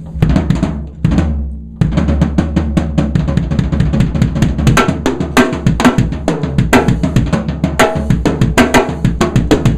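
ddrum Journeyman 13x7 snare drum, tuned high and damped with gel pads on the batter head, played with sticks in quick strokes and rolls. The strokes come thick and fast from about two seconds in.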